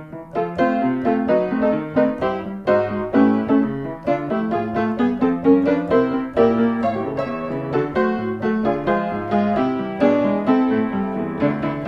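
Piano music: a continuous run of quick notes with a bass line underneath.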